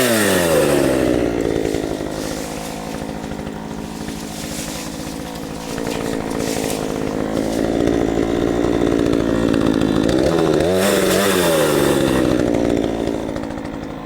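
Craftsman 42 cc two-stroke chainsaw running continuously under throttle, the way it does when cutting brush. Its pitch drops just after the start, holds steady, then rises and falls again about eleven seconds in.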